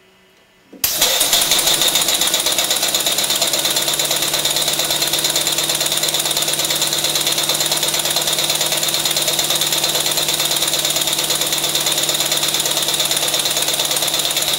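Homebuilt model steam engine with a brass cylinder, running on compressed air. It starts abruptly about a second in and runs fast and steady, with rapid, even puffs of exhausting air.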